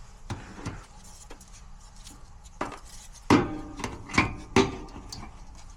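Irregular sharp clicks, then louder metallic knocks and clanks with a short ring, from metal parts and tools being handled at a furnace.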